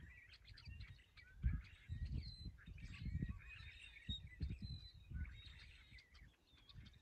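Small birds chirping and twittering outdoors, with short whistled notes, over irregular low rumbles and thumps; the loudest thump comes about a second and a half in.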